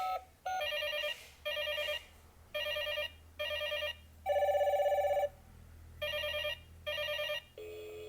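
Toy telephone's built-in speaker playing an electronic ringtone: a warbling trill in short bursts about once a second, one burst longer and louder midway. A steady lower button beep sounds near the end as a key is pressed.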